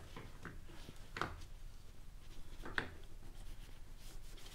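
Clutch basket and plate pack being worked onto the engine's shaft by hand: faint small knocks, with two sharper metallic clicks about a second and a half apart.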